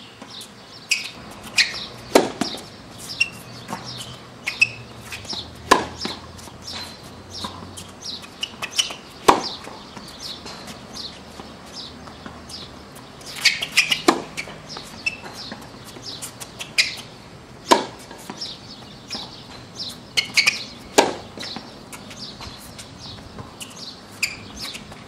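Tennis racket striking a ball with a sharp pock about every three and a half seconds, six hits in all, with fainter ticks of ball bounces and footsteps between them. Small birds chirp throughout.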